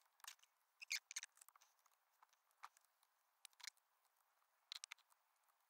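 Near silence, with faint scattered clicks and light taps of a small hand tool and fingers working the intake rubber clamps on a motorcycle cylinder head.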